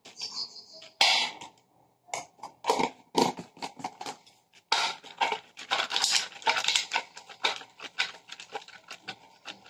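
Foil-lined plastic pouch crinkling and rustling as ghee is spooned onto it and smeared across it by hand, in quick irregular crackles.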